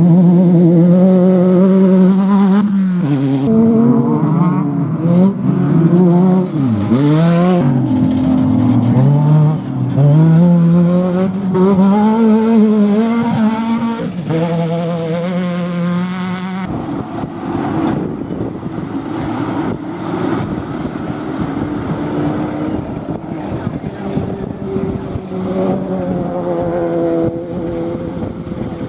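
Off-road race vehicle engines running hard, the engine note rising and falling repeatedly with throttle and gear changes as the vehicles pass close by. About two-thirds of the way in the sound cuts abruptly to a rougher, more distant mix of engine noise with fainter, steadier engine tones.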